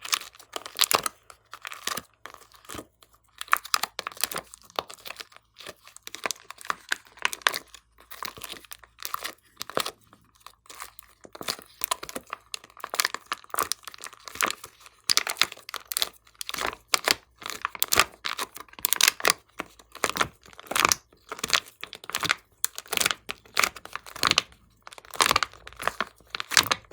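Glossy slime being mixed and stretched by hand, making sticky crackling and popping clicks in rapid clusters.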